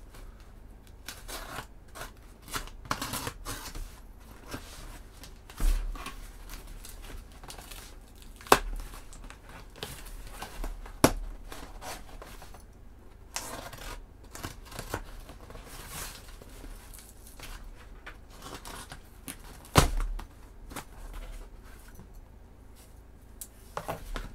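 Packing tape being picked at, peeled and torn off a cardboard shipping box, with scratchy rustling of tape and cardboard and a few sharp knocks as the box is handled.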